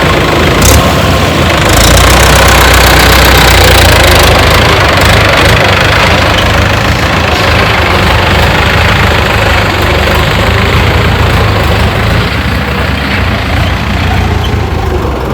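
Heavy diesel engine of an earthmoving machine running steadily, with a constant low hum under a dense mechanical clatter; it eases off slightly near the end.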